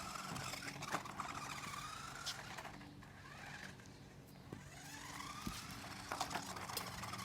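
Toy RC car electric motor whining, its pitch rising and falling again and again as the car speeds up and slows. The whine fades in the middle and picks up again near the end, with a few light clicks.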